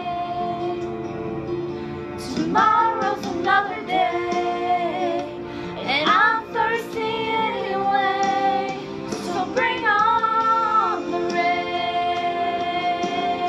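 A woman singing a slow song over steady instrumental backing, in three sung phrases with long held notes, the accompaniment carrying on alone between them and after the last.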